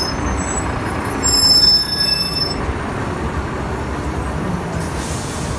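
Street traffic rumbling with a heavy vehicle's brakes squealing in high thin tones for about two and a half seconds, loudest about a second and a half in. A short hiss comes near the end.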